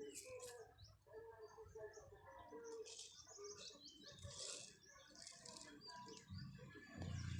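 Small birds chirping and trilling faintly in short scattered calls. A low rumble comes in near the end.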